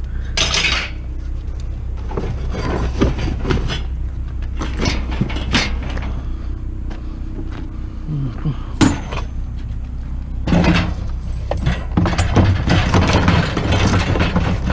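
A vehicle engine running with a steady low rumble, with scattered clunks and rattles over it, busier in the last few seconds.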